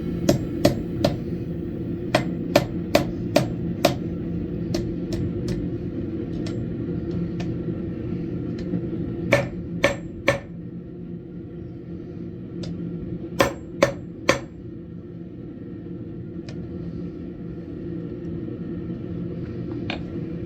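Blacksmith's hammer striking metal on an anvil in short runs of blows, each strike ringing briefly, over a steady hum.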